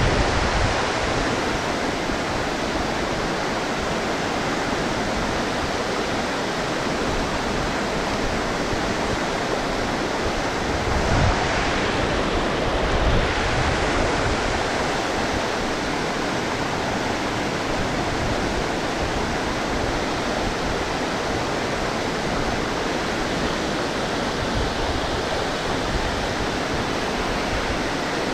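Water pouring over a low concrete weir and churning in the pool below: a steady rushing, briefly a little louder about halfway through.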